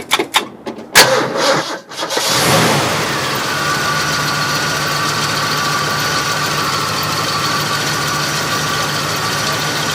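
1965 Ford Galaxie engine, running on a freshly replaced GM HEI ignition module, being started: a few clicks and knocks, then the engine catches about two seconds in with a brief rev and settles into a steady idle.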